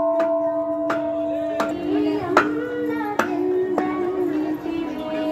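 Large brass temple bell humming as it rings out after a strike, its higher tone dying away after a second or two while the deep tone lingers. Sharp knocks come about every second, and a voice sings over the ringing in the middle.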